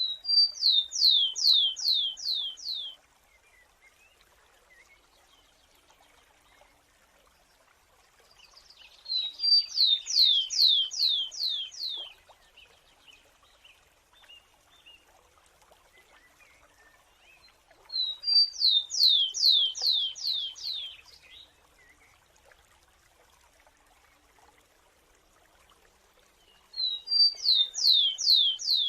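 A sparrow singing the same song phrase about every nine seconds. Each phrase lasts about three seconds: one or two short high notes, then a run of about six falling whistled notes.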